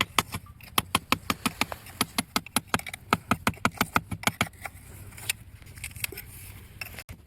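A rapid series of sharp clicks, several a second, that thins out to a few scattered clicks about halfway through, over a low steady hum.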